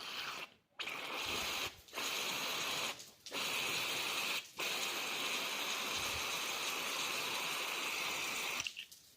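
Aerosol brake cleaner hissing out through a straw into an LPG gas injector: four short spurts, then one long spray of about four seconds. The injector is being flushed to free a plunger that sticks from gas condensate.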